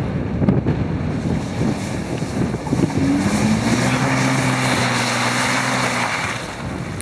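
4x4 engine working under load as the vehicle crawls over rock, with irregular crunching and knocking of tyres on rock and gravel. A steady engine drone builds about three seconds in and drops away near the end.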